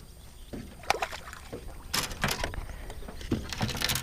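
Scattered knocks and clatter of gear moving in a small fishing boat: a few separate sharp knocks, then a quick cluster near the end.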